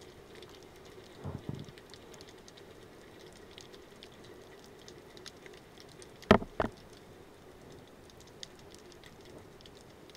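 Underwater ambience heard through the camera: a constant fine crackle of tiny clicks over a faint steady hum, a soft low thump just over a second in, and two sharp knocks about six seconds in, a third of a second apart.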